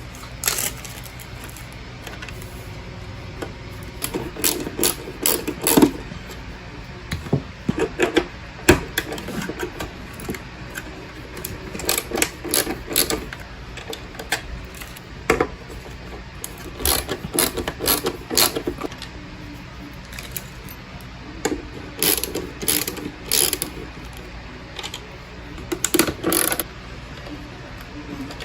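Short bursts of rapid mechanical clicking and rattling, repeated every few seconds, as fasteners are worked loose on a car's dashboard, over a steady low hum.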